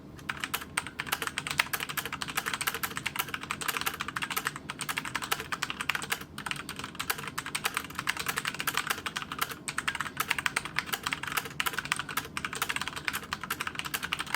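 Rapid, continuous typing on a HyperX Alloy FPS RGB mechanical keyboard with Kailh Silver Speed switches: a dense patter of keystrokes that stops just before the end.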